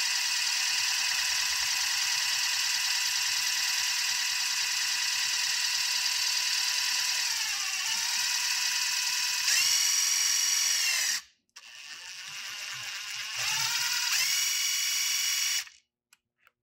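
Panasonic cordless driver spinning a socket on a spring balancer's tension adjuster, winding up the spring: a steady motor whine that sags in pitch about halfway through. It stops briefly, runs again for about two seconds and cuts off, followed by a few faint clicks.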